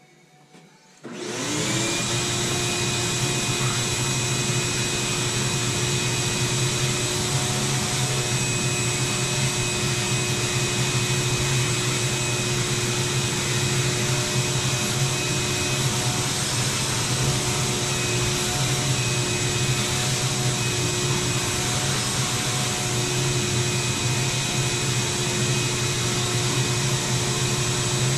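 Shop vacuum switched on about a second in: its motor spins up quickly and then runs steadily with a high whine, used to suck up the sawdust left by the track saw.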